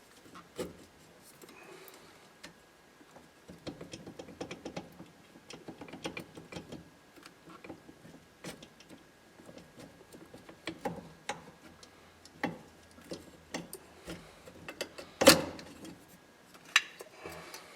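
Small metal steering-column parts clicking and clattering as they are handled and worked loose by hand, in irregular light taps, with one sharper knock about fifteen seconds in.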